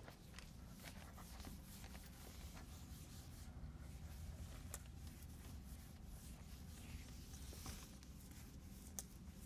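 Faint scratching and light squeaks of a marker writing on a whiteboard, over a steady low hum.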